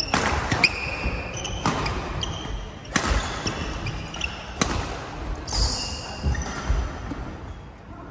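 Badminton doubles rally: rackets smack the shuttlecock a handful of times at irregular gaps, while court shoes squeak briefly and feet thud on the court floor.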